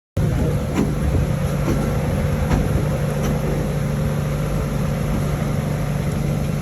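A vehicle engine running steadily with a low rumble and hum, cutting in suddenly just after the start.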